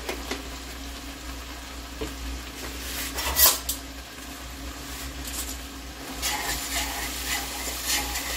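Food sizzling in a stainless steel pot while spices are added, with a brief loud clatter about three and a half seconds in. From about six seconds in, a utensil stirs and scrapes against the pot.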